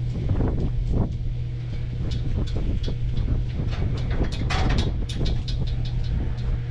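A steady low motor hum with frequent short rattles and clanks over it, busiest about four and a half seconds in.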